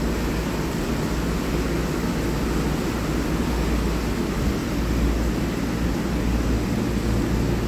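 Steady rushing drone of electric fans running, an even wash of air noise with a low hum beneath it.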